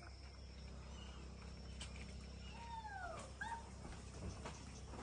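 A few short arching, falling animal calls in the middle, like a dog whining, over a steady low background hum of outdoor ambience.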